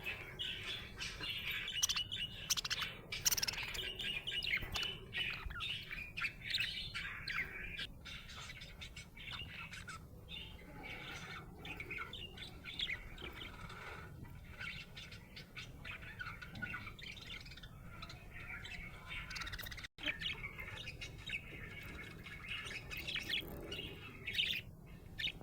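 Budgerigar chirping in a rapid, continuous stream of short calls, livelier in the first few seconds, with a brief break about twenty seconds in.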